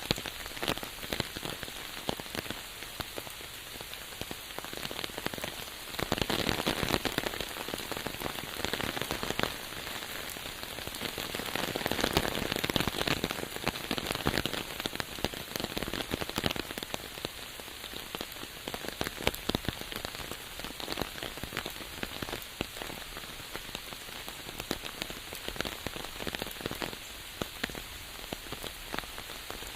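Steady rain falling on a surface, with many close, sharp drop strikes over a constant hiss. It swells heavier about six seconds in and again around twelve seconds, then eases back.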